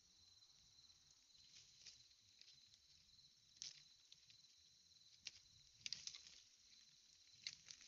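Faint, steady high-pitched insect chorus trilling throughout, broken by a few short sharp crackles about halfway through and near the end.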